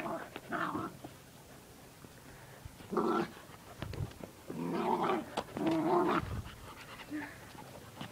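Bichon and Sprocker spaniel puppies play-growling during rough play, in short bursts: one near the start, one about three seconds in, and a longer run from about five to six seconds in.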